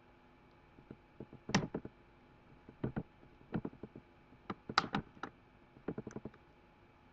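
Small, sharp clicks and taps in irregular clusters, from the parts of a Samsung Galaxy 5 (GT-I5500) smartphone being handled and taken apart by hand.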